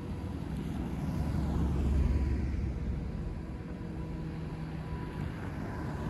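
A motor vehicle driving past with a low engine and tyre rumble that grows to its loudest about two seconds in and then fades.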